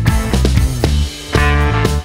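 Background music with a steady drum beat under sustained chords, dropping away briefly about halfway through.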